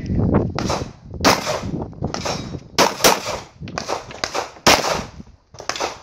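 9mm Glock 34 pistol fired rapidly, about a dozen shots, many in quick pairs, with short pauses between strings.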